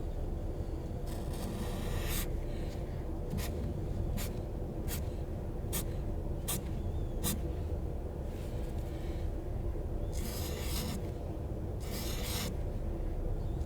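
Scribbling on paper: longer scratchy strokes about a second in and again near the end, with a run of six short, quick marks between them. A steady low hum runs underneath.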